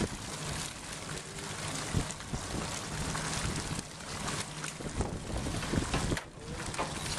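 Wind noise on the microphone over a boat engine's steady low hum, with scattered knocks.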